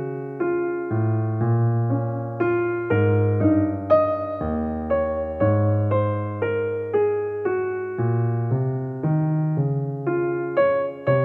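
Background music: an electric piano playing a gentle melody of struck notes, each fading after it is hit, over held bass notes.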